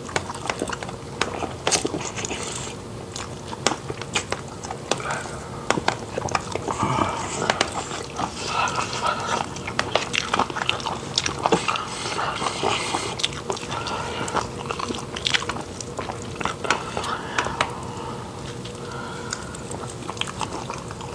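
Chewing and biting as two people eat rice and fried meat by hand, with irregular crunches and wet mouth sounds.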